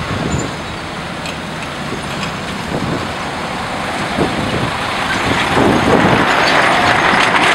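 Heavy diesel engine of a truck-mounted mobile crane running under load as it lowers a concrete beam, a steady mechanical noise that grows louder in the second half.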